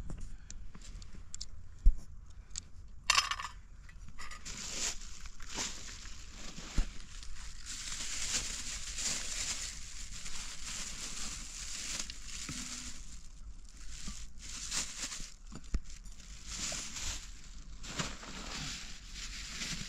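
Irregular crunching and scraping noises with a few sharp knocks, the loudest knock about two seconds in.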